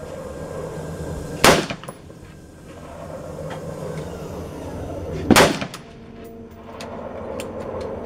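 Two shots from an AR-15 rifle firing .223 Remington, about four seconds apart, each a sharp crack with a brief echoing tail.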